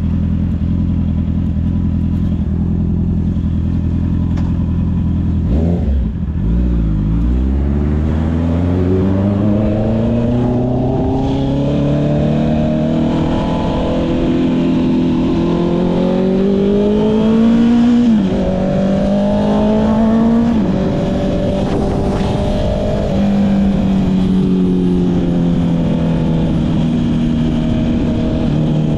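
Honda CB650R's inline-four engine through an aftermarket Akrapovic exhaust, idling steadily at first and then pulling away. The engine note climbs for about ten seconds and drops sharply twice, at about 18 and 21 seconds, on upshifts. It then settles to a steady cruise and eases off slightly near the end.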